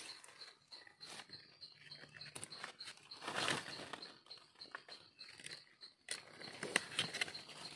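Dry leaf litter crackling and rustling as a hand digs through it to pull up a mushroom, with scattered clicks and a louder burst of rustling about three and a half seconds in. A faint high-pitched, evenly pulsed chirping carries on behind it.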